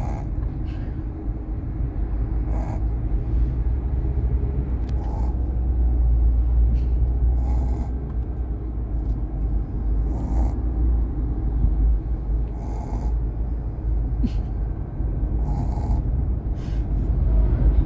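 Dog snoring in a regular rhythm, one breath about every two and a half seconds, over a steady low rumble.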